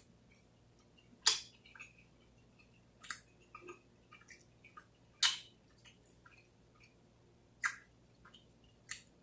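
Wet mouth sounds of someone eating a sauced chicken wing: sharp smacking clicks, a few loud ones every second or two among softer ones.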